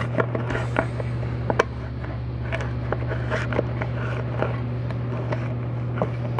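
Small clicks and scrapes from a plastic seal-installation tool being worked around a greased lip seal inside the steel clutch drum of a 4L80E transmission, over a steady low hum.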